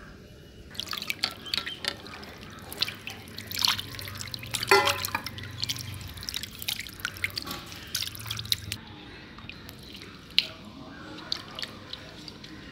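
Raw chicken pieces being washed by hand in water in a steel bowl: irregular splashing, sloshing and dripping. The splashing is busy for the first nine seconds and sparser after. A louder knock with a short ring comes about five seconds in.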